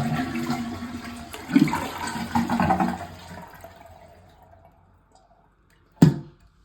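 Toilet flushing with its water supply shut off: the rush of water is strongest for about three seconds, then fades away as the tank empties without refilling. A single clunk near the end.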